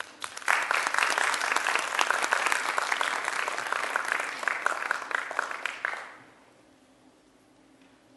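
Audience applauding: a dense patter of many hands clapping that starts about half a second in, holds for some five seconds, and dies away about six seconds in.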